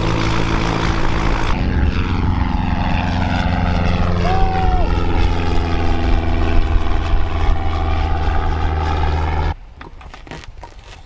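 Cessna 152 light plane's four-cylinder piston engine and propeller at takeoff power, a steady drone with a sweeping, phasing hiss as the plane climbs away. It cuts off suddenly near the end.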